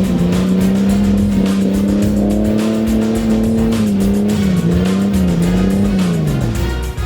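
Off-road car engine held at high revs, wavering a little midway, then dropping off near the end, with background music.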